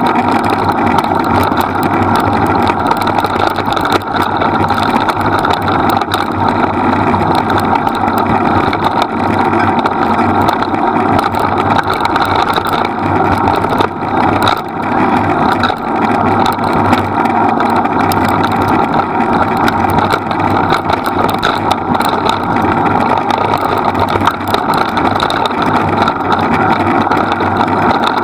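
Steady rushing noise of wind on the microphone and wheels rolling over the dirt and leaf-covered trail as a dog-pulled rig moves at speed.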